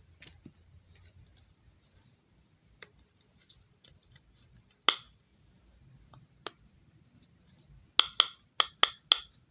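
Small hard plastic fidget toys being handled and clicked: scattered single clicks and taps, then a quick run of about seven sharp clicks near the end.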